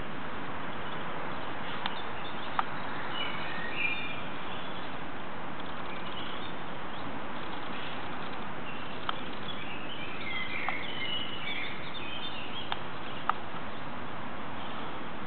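Birds chirping in two short spells over a steady background hiss, with a few sharp clicks scattered through.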